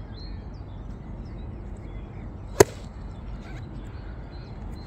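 A 9-iron striking a golf ball: one sharp crack about two and a half seconds in, with faint birdsong behind.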